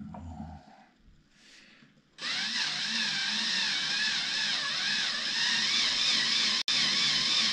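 Cordless drill with a milling bit starting up about two seconds in and running steadily, its motor pitch wavering up and down as it cuts into cured epoxy resin to open up and clear out air-bubble voids. A short knock at the very start; the sound drops out for an instant near the end.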